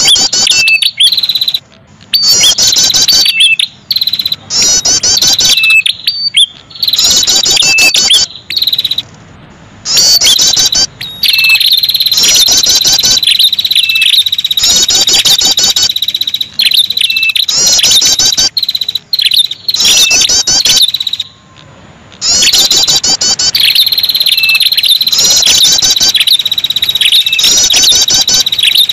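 Lure-call recording of the prenjak kepala merah, a small rufous-headed songbird: bouts of very rapid, high repeated chirping over a steady, high, insect-like buzzing trill, broken by a few short gaps.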